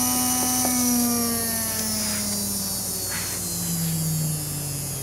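Electric motor of a Unimat SL jeweler's lathe running free with no drive belt fitted. It gives a whine of several steady tones that slides steadily down in pitch as the motor slows. There are a couple of light clicks about half a second in.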